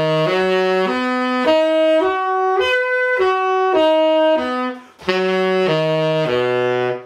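Tenor saxophone playing triad arpeggios, note by note up and down, with a short break about five seconds in. This is the example of triads moving up chromatically: C major, then C sharp major, then D major.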